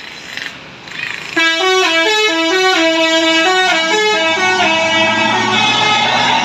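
Bus's Basuri telolet multi-tone musical air horn playing a quick melody of stepped notes. It starts suddenly and loudly about a second and a half in.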